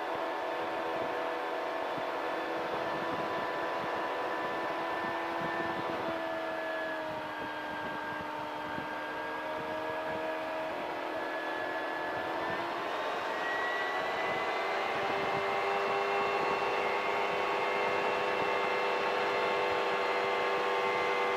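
CGS Hawk ultralight's engine and propeller droning steadily in flight just after takeoff. The pitch drops slightly about six seconds in and rises again around thirteen seconds in.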